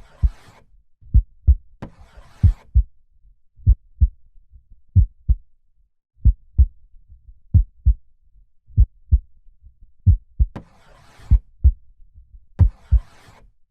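Slow heartbeat: a steady double 'lub-dub' thump repeating about every 1.3 seconds, roughly 45 beats a minute. Soft breaths are heard over it twice in the first couple of seconds and twice more near the end.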